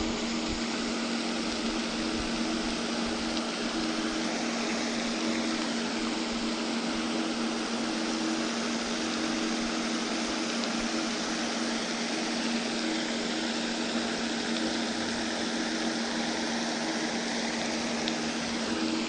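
Steady rushing noise with a constant low hum underneath, unchanging throughout, with no separate events.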